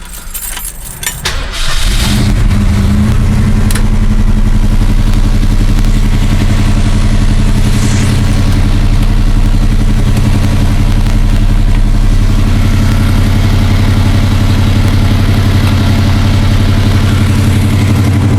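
Keys jangle briefly, then the 1972 Ford Mustang Mach I's V8 engine starts about two seconds in and runs at a steady idle.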